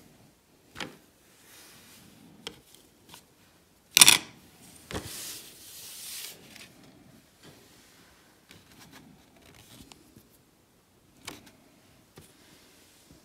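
A small wooden-mounted rubber stamp is pressed and knocked against card and a tabletop and dabbed on an ink pad, making a few scattered knocks. The sharpest knock comes about four seconds in and is followed by a soft rustle of paper.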